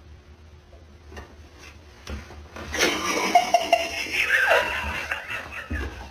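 Shaggy fabric bath mat dragged in pulls across a wooden floor and in under a door by a cat on the other side. From about three seconds in, a loud voice sounds over it.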